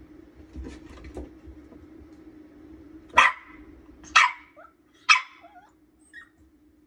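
A dog barks three times, sharp and loud, about a second apart.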